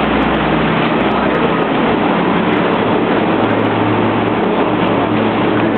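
Motorboat underway: its engine runs steadily under a loud, continuous rush of water and wind. The low engine hum steps down in pitch partway through.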